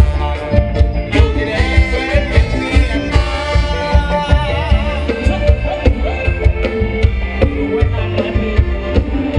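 Live Thai ramwong dance band playing over a PA, with a steady, driving drum beat under the melody lines.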